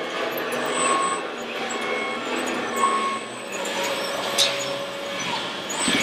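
Radio-controlled scale trucks and construction machines running together, a steady mix of engine-like vehicle sounds, with a few short tones and a sharp click about four and a half seconds in.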